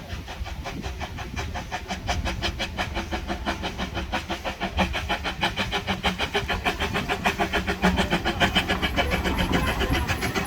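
Narrow-gauge steam locomotive working a train, its exhaust beats coming in a quick, even rhythm of about five a second, growing steadily louder as it approaches.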